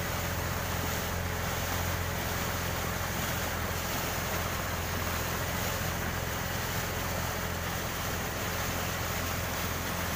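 Yamaha 40 hp outboard motor on a small fibreglass speedboat running steadily, a constant low hum over the rush of water and wind.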